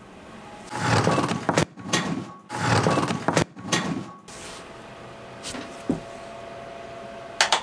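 A portable electric fan heater knocked off a workbench, clattering and knocking onto the floor in a series of loud impacts over the first few seconds. Its fan then runs with a steady hum, and a couple of sharp clicks come near the end.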